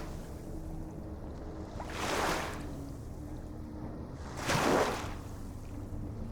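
Ocean waves washing in: two short surges of surf about two and a half seconds apart, over a steady low hum.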